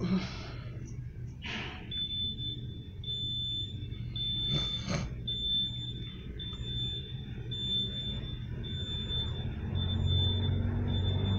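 A high-pitched electronic beeping that repeats about once a second, each beep long with a short gap, starting about two seconds in. Under it are a low hum and a few brief rustles.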